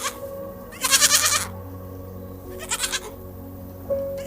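An animal giving short, wavering cries three times, over soft background music with a slow melody.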